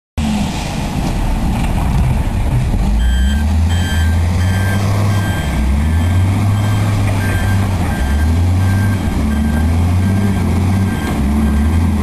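A heavy engine running steadily, with a short high beep repeating at an even pace from about three seconds in.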